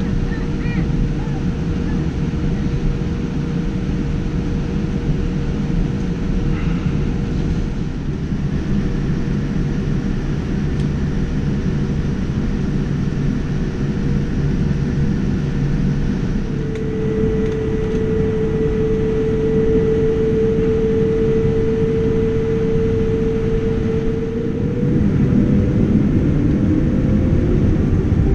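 Cabin noise of a Boeing 787 Dreamliner taxiing: a steady low rumble with the hum of its Rolls-Royce Trent 1000 engines. The hum grows louder partway through and rises slightly in pitch near the end.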